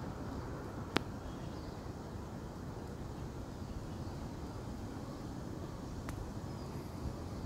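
Steady low outdoor rumble, with one sharp click about a second in and a fainter click about six seconds in.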